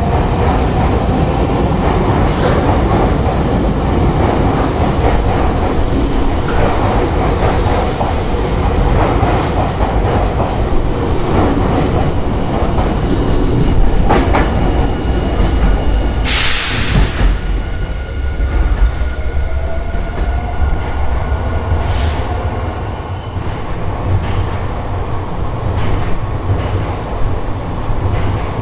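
Nankai 6000 series electric train pulling out of the platform, its wheels clacking over the track as the cars run past, with one short, loud hiss about sixteen seconds in. The running noise eases over the last ten seconds as the train draws away.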